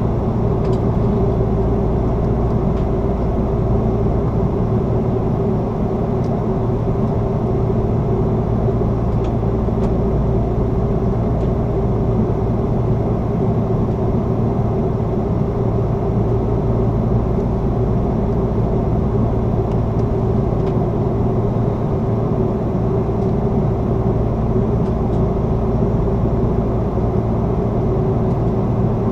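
Steady cabin noise inside an Airbus A330-300 climbing through cloud: the Rolls-Royce Trent 700 engines and the rush of air past the fuselage, with a constant mid-pitched hum under it.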